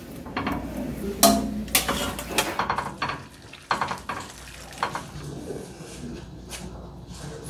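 Metal skimmer ladle clinking and knocking against an earthenware pot and its contents as chicken and herbs are arranged in it: a quick run of sharp clatters over the first three seconds, then only a few scattered clicks.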